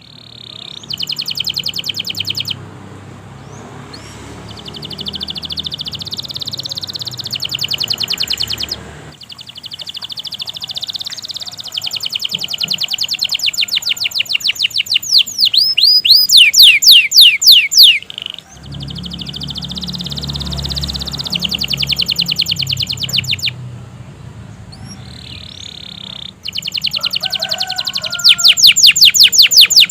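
Domestic canary singing a long, unbroken song of rapid high trills and rolls, with loud runs of fast, sharply falling sweeping notes about halfway through and again near the end. A low hum sits under parts of it.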